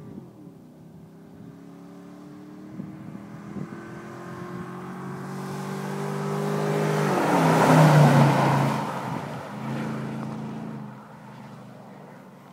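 2008 GMC Sierra 1500 pickup's V8 pulling hard toward the listener, its engine note climbing steadily. About seven seconds in the pitch drops sharply as the truck passes, loudest just after, then it fades away.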